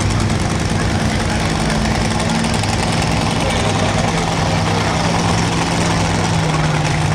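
Modified pulling tractor's engine idling with a steady low drone; its note shifts slightly lower about two and a half seconds in.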